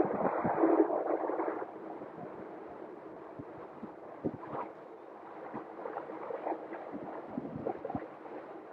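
Wind rushing over a phone's microphone while riding, a steady hiss that drops in level about one and a half seconds in, with a few faint knocks.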